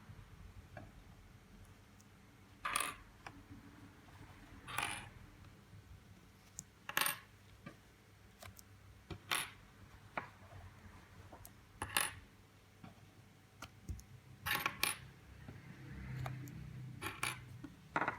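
Sharp metallic clicks from a 3D printer printing flexible filament, one about every two to two and a half seconds, with a quick double click near the end.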